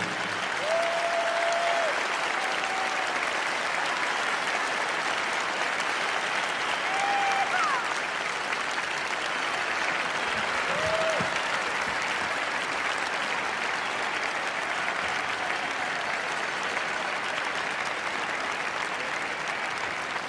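Large arena audience applauding steadily after the music ends, with a few short pitched calls from the crowd heard over the clapping.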